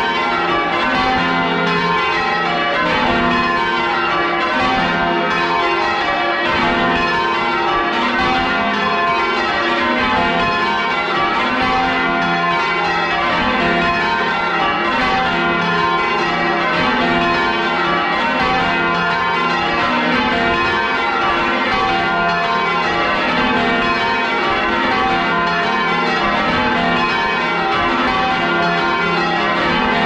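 A ring of ten church bells swinging and striking in quick, unbroken succession, heard close up from inside the bell chamber, as the bells are rung down.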